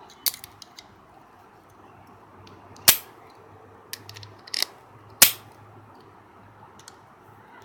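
Pliers clicking and snapping against the metal top of a disposable lighter as they grip it and slip off. There are several sharp clicks, the loudest about three seconds in and again about five seconds in.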